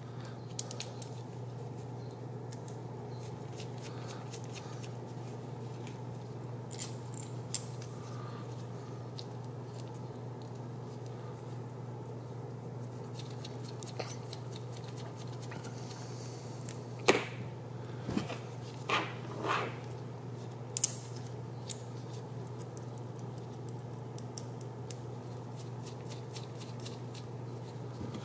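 Small clicks and ticks from M3 steel screws and frame standoffs being handled and threaded by hand, with a few louder knocks bunched together about two-thirds of the way through, over a steady low hum.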